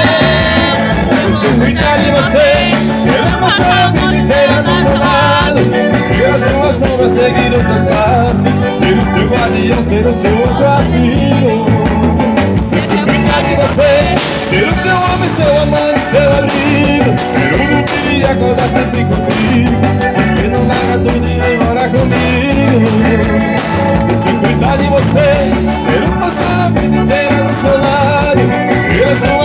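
Live band music with an accordion leading over electric guitars and bass, steady beat, loud and continuous.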